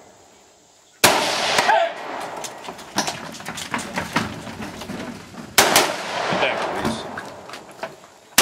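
Gunshots from a competitor's firearm during a 3-gun match stage: a loud shot about a second in and another past the middle, each with a long fading echo, with fainter sharp cracks in between and one more loud shot right at the end.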